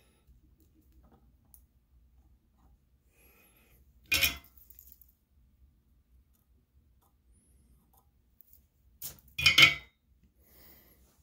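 Small metal tools being handled on a workbench: a short metallic clatter about four seconds in, then a louder cluster of two or three clinks near the end.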